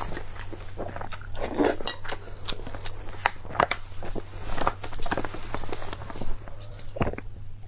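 Close-up eating sounds: chewing and biting with many short clicks of utensils against dishes, over a steady low hum.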